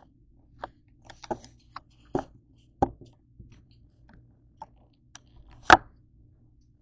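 Irregular clicks and knocks of things being handled and set down on a kitchen counter, with the sharpest knock near the end.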